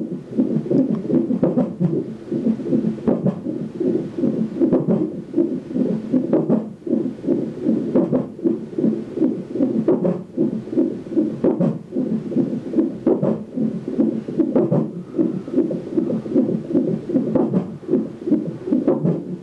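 Unborn baby's heartbeat played through a fetal monitor's Doppler ultrasound during a non-stress test: a fast, steady beating pulse. A sharper knock comes through about every one and a half to two seconds, the baby's hiccups.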